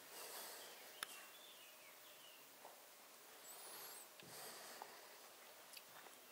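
Near silence: faint room tone with a soft click about a second in and a few fainter ticks.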